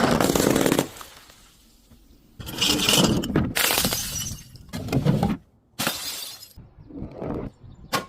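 Glass bottle breaking and being crushed: a loud shattering crash at the start that dies away within a second, a longer stretch of breaking and crunching glass from about two and a half seconds in, then several shorter crunches near the end.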